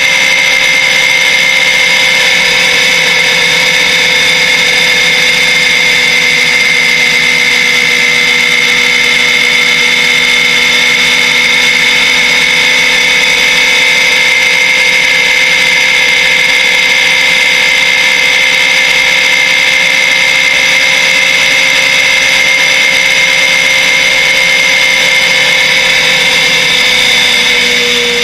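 Motorcycle engine running steadily at motorway cruising speed, with a constant high engine note. Near the end the note drops and gets a little quieter as the throttle eases off.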